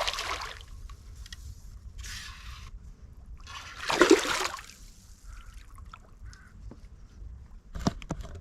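Water splashing as a freshly caught asp is brought in at the water's edge, with a loud splash about four seconds in. A few sharp knocks follow near the end.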